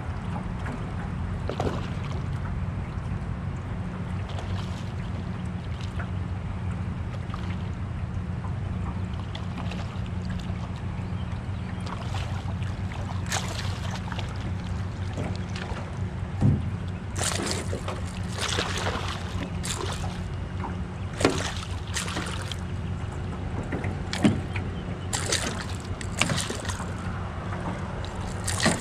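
A hooked striped bass splashing and thrashing at the water's surface beside a kayak as it is drawn in, in a run of sharp splashes from about halfway on. Under it, a steady low rumble of water and wind.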